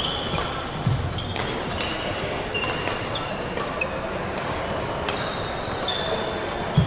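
Badminton rally on a wooden hall floor: sharp racket strikes on the shuttlecock, short high squeaks of court shoes, and the thud of footsteps and lunges.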